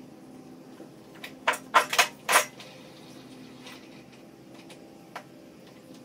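A quick run of about five loud, sharp metal clacks a little over a second in, then a single click about five seconds in, as the steel parts of a plug aerator's wheel and handle are handled.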